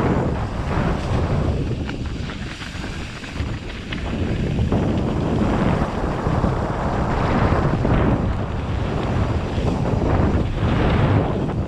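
Wind noise on an action camera's microphone as a mountain bike runs down a dirt trail, with the rumble of tyres on dirt and a few knocks from the bike hitting bumps near the end. The rush eases for a couple of seconds early on, then builds again.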